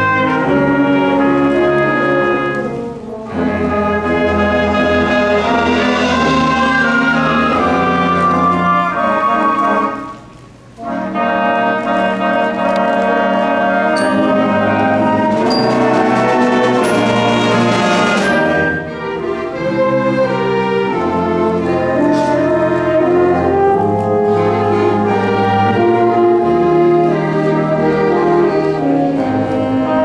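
High school symphonic wind band playing, brass and woodwinds together in full chords, with a brief break between phrases about ten seconds in.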